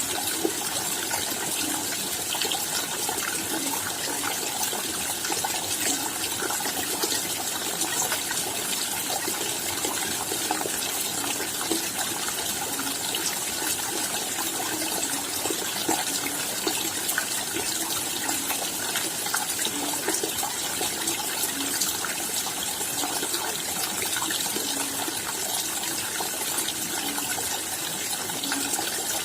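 Steady rain falling: an even hiss of raindrops with many small drip ticks scattered through it.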